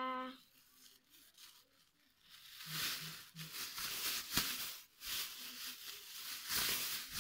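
Thin plastic bag rustling and crinkling as it is shaken open and spread out, starting about two seconds in, with a few sharp snaps of the film.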